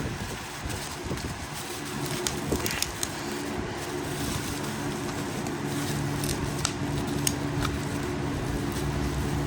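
Scattered light clicks and crackles from handling items and packaging, over a steady low mechanical hum.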